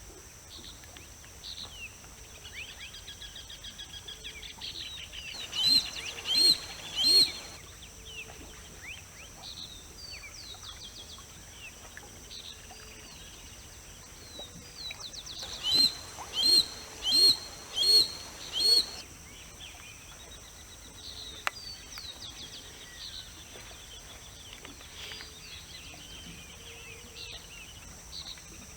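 Harris's hawk calling in short, loud bursts: three calls about six seconds in and five more around sixteen seconds in. Small birds chirp faintly in between, over a steady high insect hum.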